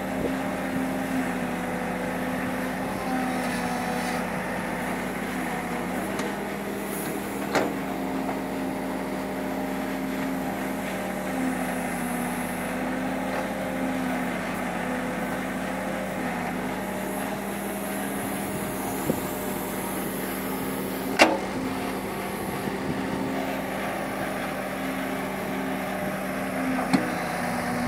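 Case 770 backhoe loader's diesel engine running steadily while the backhoe digs, its pitch dipping slightly at times. A few sharp knocks cut through, the loudest about two-thirds of the way in.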